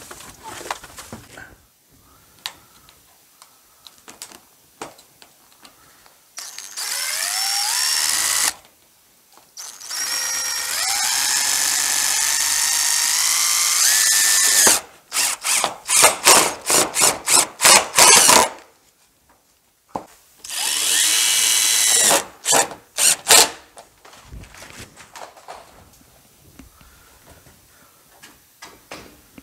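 Cordless drill driving screws through a corrugated metal roofing sheet into wooden furring strips. It makes three long runs, the motor's whine rising in pitch as each screw goes in, and between them a quick string of short trigger bursts.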